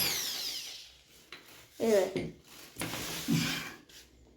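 Electric drill running, its whine falling as it winds down and dies away within about the first second, followed by light scraping.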